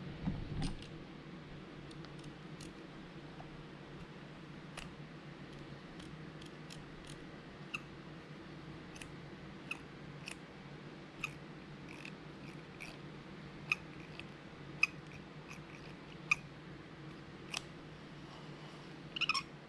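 Short squeaks and clicks from the drag-lever area of an Alligator Giken Battle 20GT lever-drag reel, about one a second and irregularly spaced, with a louder cluster near the end. The squeak is the fault being chased, coming from around the preset knob as the drag lever is moved.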